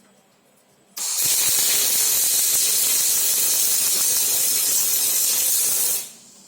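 Robotic arc weld: the welding arc strikes suddenly about a second in and runs for about five seconds as a steady, loud hissing crackle, then cuts off.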